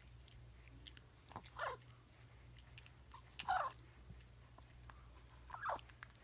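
Snoring: three rasping breaths about two seconds apart, each sliding down in pitch.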